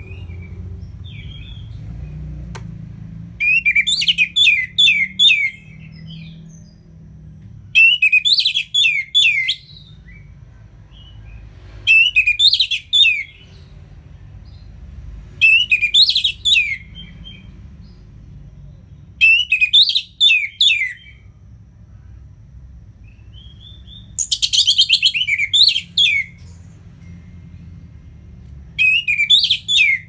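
Orange-headed thrush singing loud phrases, each a quick run of falling whistled notes, repeated seven times with pauses of a few seconds between; the phrase about a second before the end of the third pause is buzzier and denser. A low steady hum runs underneath.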